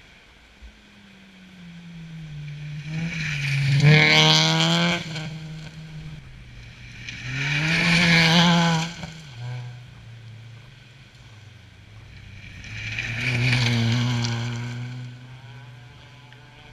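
Rally car engine at full throttle on a gravel stage. It revs hard with the pitch climbing and then dropping at gear changes, and is loudest as it passes about eight seconds in. It surges once more near fourteen seconds as it pulls away and fades.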